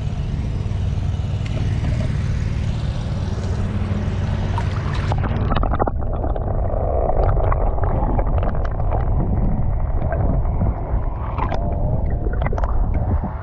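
Steady low rumble of wind buffeting the microphone, with gurgling river water underneath.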